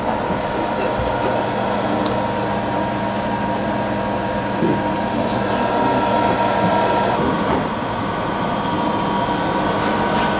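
Servo drive test bench running: a steady machine hum with high-pitched whining tones over it, and another high tone joins about seven seconds in.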